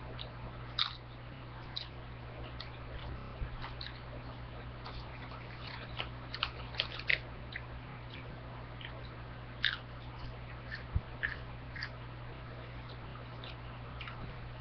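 Chips being chewed close to a headset microphone: irregular sharp crunches, coming thickest about six to seven seconds in and again near ten to twelve seconds, over a steady low hum.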